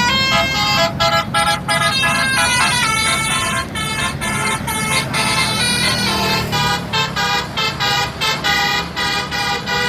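Bus telolet horn: a set of musical air horns on a tour bus playing a quick tune of separate pitched notes. The notes turn short and choppy in the second half, about three or four a second, with the bus engine running underneath.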